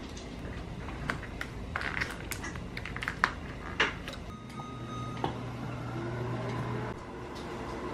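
Light clicks and knocks of dishes being set down and handled, then a low steady appliance hum for about three seconds that cuts off suddenly.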